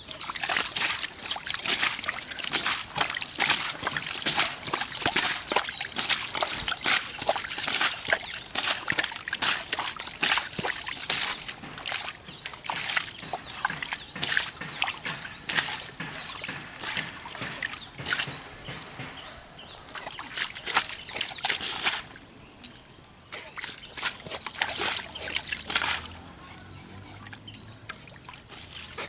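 Shallow muddy water splashing and sloshing as it is scooped and thrown with a hand-held steel bowl. The splashing is dense and busy for most of the time, drops away about three-quarters through, comes back briefly, then turns to quieter trickling.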